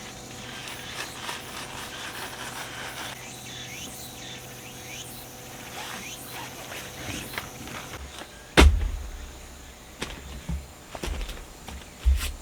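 Insects calling steadily in the background, with a few rising and falling notes midway. About two-thirds of the way through comes a single loud thump, then several lighter knocks and low rumbles.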